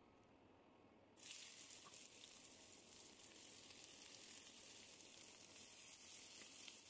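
Chopped onions dropped into hot oil in a frying pan start sizzling suddenly about a second in, then keep up a steady sizzle while being turned with a spatula.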